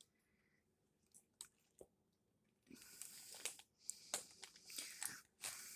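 A few faint clicks, then from about halfway a run of crinkly, rustling handling noise in short bursts with clicks among them.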